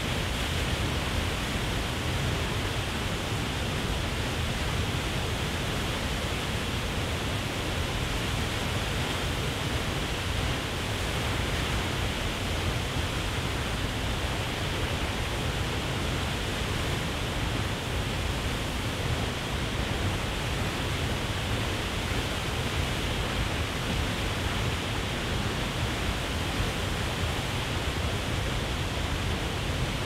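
Waterfall rushing steadily: a constant, even noise of falling water with no change in level.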